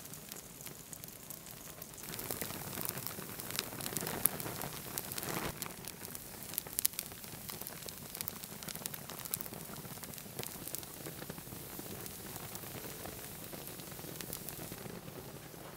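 Melting plastic of a rotary dial telephone burning in open flames, crackling and sizzling with scattered sharp pops. It grows louder about two seconds in and settles back after a few seconds.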